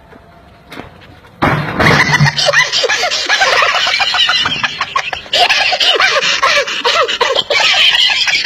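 Loud laughter from several voices at once, starting suddenly about a second and a half in after a faint stretch and going on without a break.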